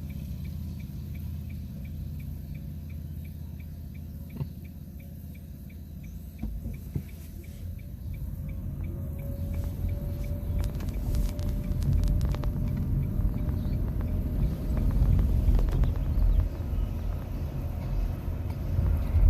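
Road and tyre rumble inside a 2021 Nissan Leaf's cabin as the car gathers speed, with the electric drive's faint whine climbing in pitch. A light, even ticking runs through the first several seconds.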